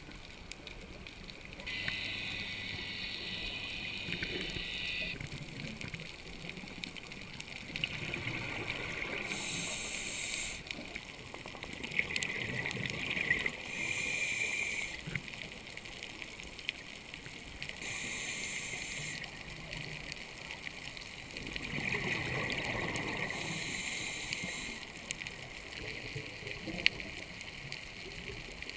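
Scuba diver breathing through a regulator underwater: bursts of exhaled bubbles gurgling every four or five seconds, each lasting a second or more.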